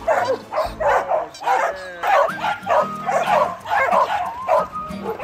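Dogs barking and yipping in quick succession, two or three barks a second, over background music.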